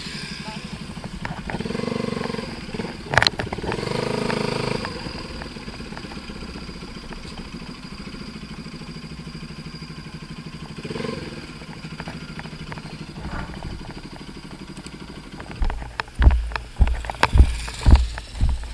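Motorcycle engine running steadily at low speed, louder for a few seconds early in the ride, with a sharp click about three seconds in. About sixteen seconds in the engine sound gives way to a run of heavy thumps, roughly two a second.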